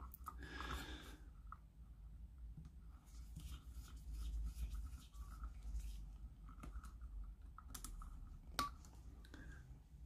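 Faint clicks and rustles of wires being handled and pushed into a plastic screw terminal block, with a small screwdriver working the terminal screws and one sharper click near the end, over a faint low hum.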